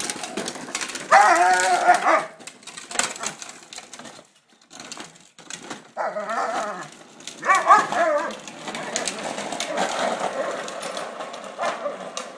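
A dog barking and growling in three loud bouts as it lunges at a kid's plastic drift trike, with the trike's plastic wheels rattling and scraping on the asphalt between them.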